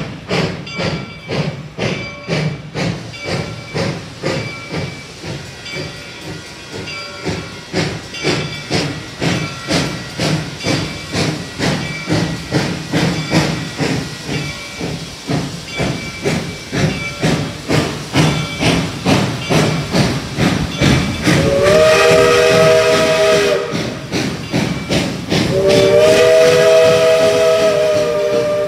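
Steam locomotive RBMN 425, a 4-6-2 Pacific, working hard under load, its exhaust chuffing in a steady rhythm and growing louder as it nears. About 21 seconds in, its chime whistle sounds two long blasts for the grade crossing.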